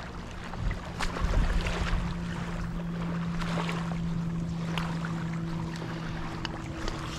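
A distant boat engine drones steadily at a low pitch, over wind and water noise, with scattered light clicks.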